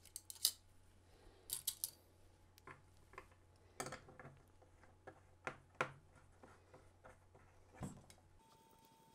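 Scattered light clicks and taps of small metal screws and nuts against a 3D-printed plastic part as M3 nuts are pressed into its slots by hand.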